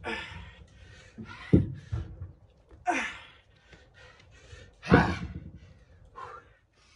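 Hard exhales and gasping breaths of a man working through dumbbell clean and presses. Two heavy thumps from the 40-pound hex dumbbells land about one and a half and five seconds in.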